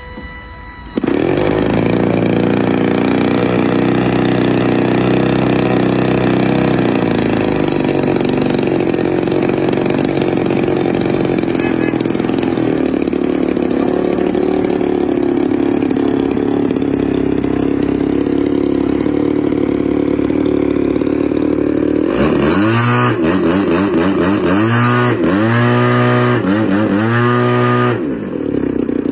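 Engine and propeller of a large radio-controlled aerobatic plane catching about a second in and running steadily. Near the end it is revved up and down four times, then drops back to idle.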